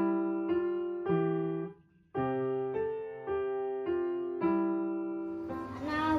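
Background music of struck keyboard chords, each fading before the next, about two a second, with a short break about two seconds in. A singing voice comes in near the end.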